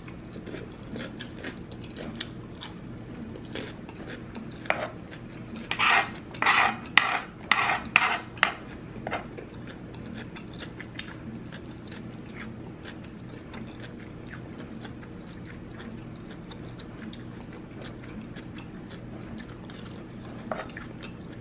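Close-miked chewing and wet mouth clicks of someone eating rice and sausage from a spoon, over a low steady hum. A cluster of louder sharp clicks and scrapes comes between about six and eight and a half seconds, and one more near the end.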